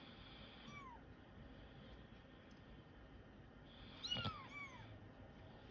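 A kitten mewing faintly: short high-pitched mews that rise and then fall in pitch, two near the start and two more about four seconds in. A single knock comes with the later mews.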